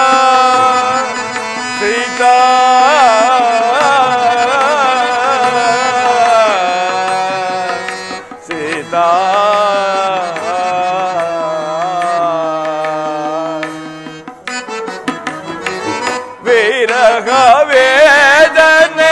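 Carnatic-style instrumental interlude of a drama song: an ornamented melody that glides between notes over a low drone. A run of tabla strokes comes about three-quarters of the way through, then the melody returns louder.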